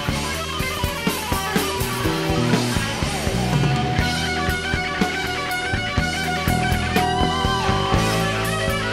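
Instrumental progressive rock played live by a band of electric guitar, drums, bass and keyboards, with drum hits throughout.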